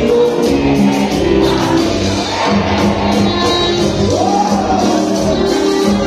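Live band music with a singer's voice over accordion and electric guitars.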